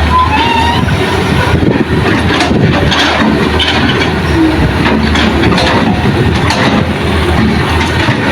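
Excavator's diesel engine running steadily while it digs and loads soil, with scattered metallic knocks and scraping and a few short high squeals.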